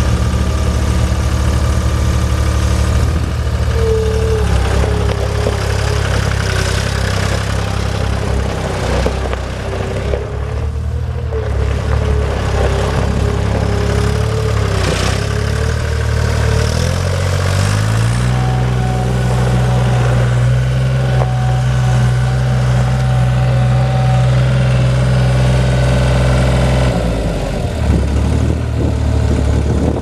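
Deutz three-cylinder diesel engine of a Gehl 4640 skid steer running. It revs up a little past halfway, holds at the higher speed, then drops back to idle near the end. A wavering whine sits over the engine in the first half.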